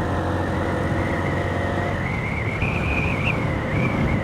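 Honda CB125F's single-cylinder four-stroke engine running at road speed with wind rushing past, and a thin steady whistle that rises a little past the middle. The engine's hum weakens about two seconds in.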